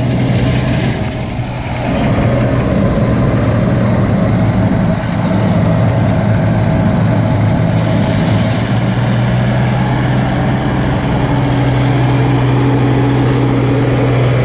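Tractor engine running steadily while pulling a John Deere 568 round baler that is baling hay, the baler's machinery clattering under the engine drone.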